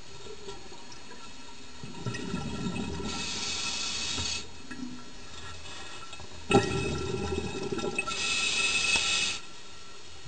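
Scuba diver breathing through a regulator underwater, two breaths about four seconds apart. Each is a gurgling rush of exhaled bubbles followed by a bright hiss of air drawn through the regulator.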